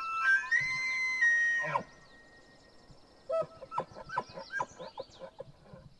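Bull elk bugle: a rising, high whistle held for under two seconds that breaks off sharply, followed about a second later by a run of about a dozen quick chuckles.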